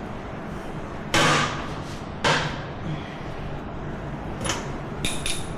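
Two loud clanks about a second apart, then a few lighter clicks and taps near the end, from parts and hardware being handled and set down during ATV disassembly, over a steady low hum.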